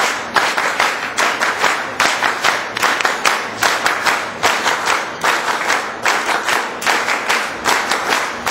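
A crowd applauding, clapping together in a steady rhythm of about three claps a second.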